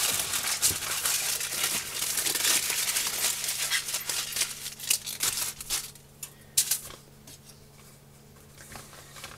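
Aluminium foil crinkling and crumpling as a burrito is folded up in it by hand. It dies down about six seconds in, after one last sharp crackle.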